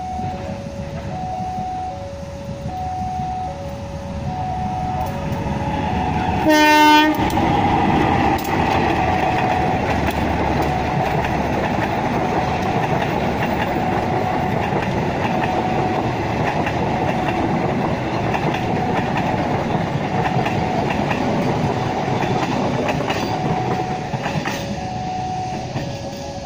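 A diesel locomotive hauling a passenger train sounds one short horn blast about seven seconds in, then the train rumbles past, its wheels clattering over the rails and points. An electronic two-tone warning alarm beeps throughout, alternating a higher and a lower tone, and is half-buried under the train once it is passing.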